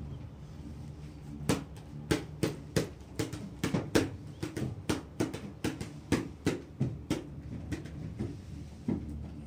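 Gondola cabin running on its cable: a steady low hum, and from about a second and a half in a run of sharp clacks, two or three a second, that die away near the end, as the cabin's running gear passes over a cable tower.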